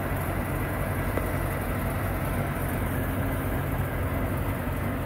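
Diesel engine of a six-wheel-drive Russian-built truck running steadily with a deep, even note as the truck rolls slowly along.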